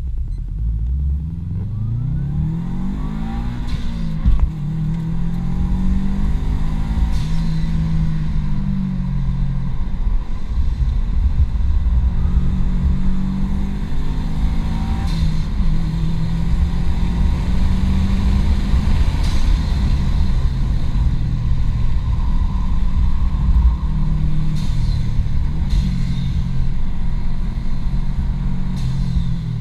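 2005 Subaru WRX's turbocharged 2.0-litre flat-four engine under hard acceleration on track, its pitch climbing through the revs and dropping back at each gear change, over and over. A single sharp knock about four seconds in.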